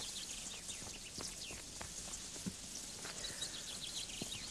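Small birds chirping faintly and continuously, with a few soft taps scattered through.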